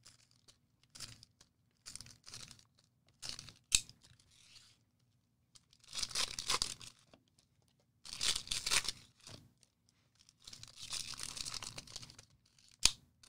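Trading card packaging being torn open and crumpled in about six separate rasping rips, with a sharp snap about four seconds in and another near the end.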